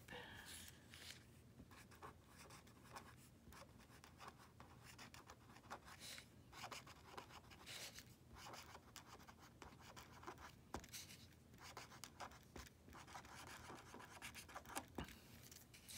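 Pen writing cursive on lined paper: faint, irregular scratching strokes as the letters are formed.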